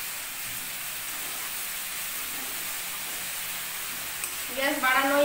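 Chopped banana blossom and potato frying in hot mustard oil in a steel kadai while being stirred with a spatula: a steady sizzling hiss. Near the end a short, high, pitched voice-like sound comes in over it.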